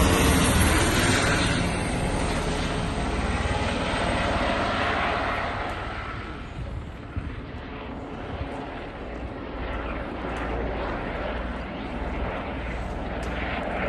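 Helicopters flying over: engine and rotor noise that is loudest in the first couple of seconds as one passes overhead, then settles to a steadier, fainter drone as they circle further off.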